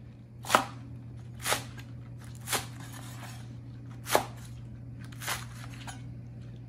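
Cleaver chopping through a bunch of green onions on a cutting board: five separate chops about a second apart.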